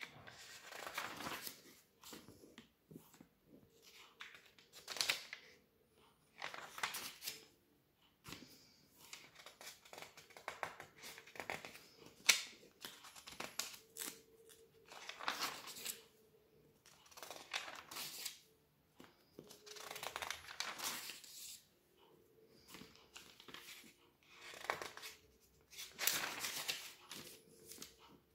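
Glossy magazine pages being turned by hand: a papery swish and rustle, repeated every few seconds with short pauses between.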